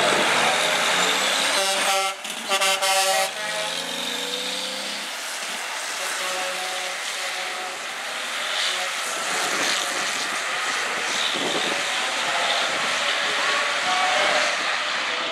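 Two diesel dump trucks launching in a drag race, their engines running hard at full throttle. A truck air horn blows twice, about two seconds in, while engine pitch climbs beneath it. The engine noise then carries on steadily as the trucks pull away.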